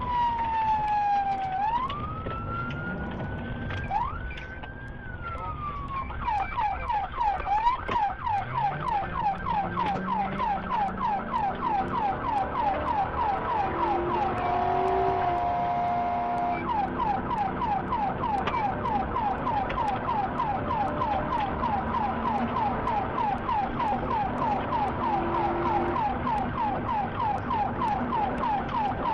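Police car siren during a pursuit: a slow rising and falling wail for the first few seconds, then a fast yelp at about three sweeps a second. A steady tone cuts in for about two seconds midway.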